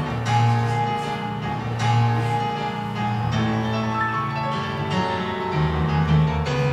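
Instrumental music accompanying a silent film, with low held notes under a melody.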